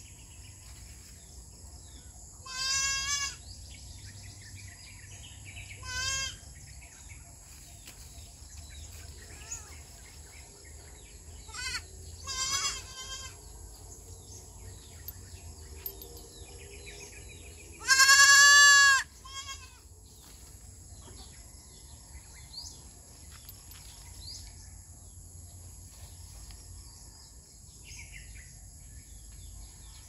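Goat kids bleating now and then: a few short bleats, then one long, loud bleat about two-thirds of the way through.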